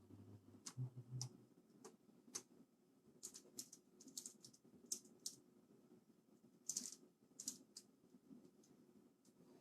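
Faint, irregular small clicks and taps of hands and tools working on a mechanical keyboard's internals as it is screwed back together, with a brief low hum about a second in.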